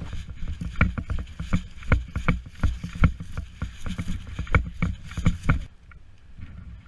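Running footsteps with gear and the body-worn camera jolting, about two to three heavy thumps a second, stopping about five and a half seconds in.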